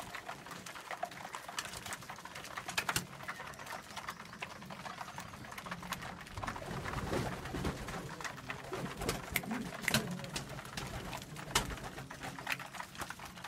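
A flock of racing pigeons pecking grain from a plastic feeder tray: quick, irregular taps and clicks of beaks on seed and tray, with low pigeon cooing, stronger about halfway through.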